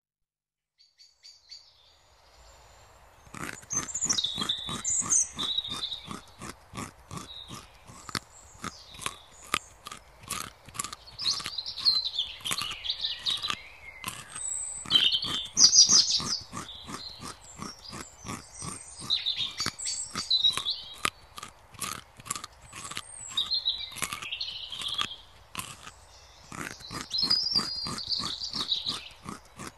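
A rabbit chewing, a steady run of crisp crunches about three a second that starts about three seconds in, with small birds chirping over it now and then.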